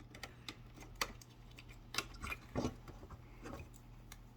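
A few light, sharp plastic clicks and taps as wire connectors are handled and plugged into a dishwasher's replacement control panel, over a faint low hum.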